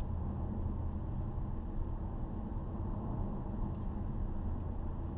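Cabin noise of a 2012 Ford Fusion Sport cruising steadily: the 3.5-litre V6 through a stock exhaust with the resonator removed gives a constant low drone, mixed with road noise.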